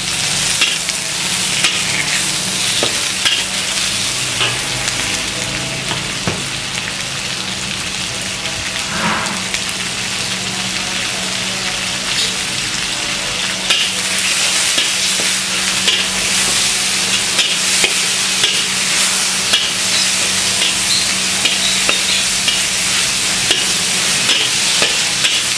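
Chopped chilies, tomato and leaves sizzling steadily in hot oil in a wok while being stirred, with a metal spatula scraping and tapping against the pan now and then. The vegetables are being sautéed until they wilt.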